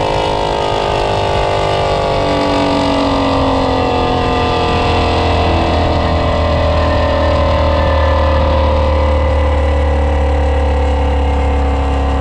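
Ford Shelby GT350's 5.2-litre flat-plane-crank V8 running through American Racing headers and an aftermarket exhaust at highway speed, its engine note sinking slowly as the car eases off. A deep low rumble builds underneath from about halfway through.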